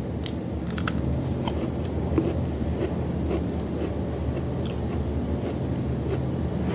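Steady low machine hum running throughout, with scattered small clicks and taps from eating by hand out of a bowl and chewing.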